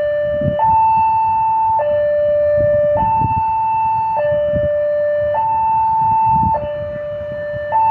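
Electronic two-tone warning alarm alternating between a lower and a higher pitch, each held about 1.2 seconds, over an irregular low rumble.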